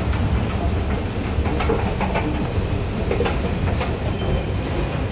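Steady low rumble, with a few light clacks about two to four seconds in.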